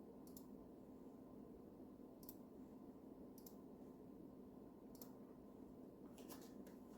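Near silence: a faint steady room hum with about six faint, sharp clicks at uneven intervals, two of them close together near the end.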